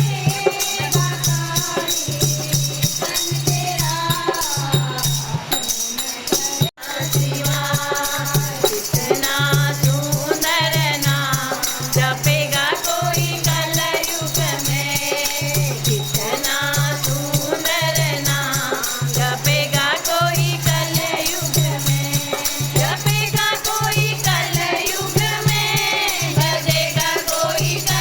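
Voices singing a Hindu devotional bhajan in a kirtan, with a steady low beat about once a second and constant jingling rattle-like percussion. The sound drops out for an instant about seven seconds in.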